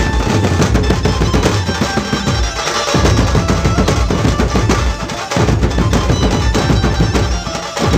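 A Dhumal band's large barrel drums beaten with sticks in a fast, driving unison rhythm. The deep drumming breaks off briefly about three seconds in and again about five and a half seconds in, then resumes.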